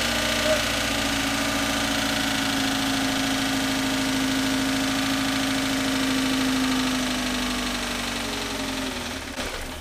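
Toyota GT86's FA20 flat-four engine idling steadily, then its note sagging and dying out as the engine stalls near the end.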